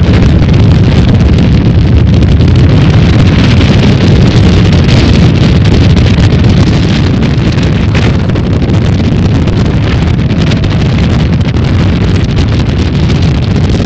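Wind buffeting the microphone over a speedboat running at high speed; the noise eases a little about seven seconds in.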